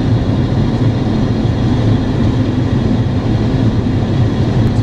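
Cockpit noise of an Embraer Legacy business jet on approach: a steady low drone of airflow and engines, with faint thin high tones running through it.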